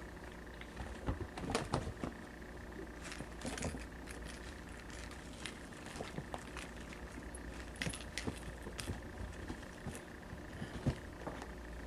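Kittens play-fighting on carpet: their paws and claws make scattered light taps, scratches and clicks, irregular and short, against the carpet and a wooden panel.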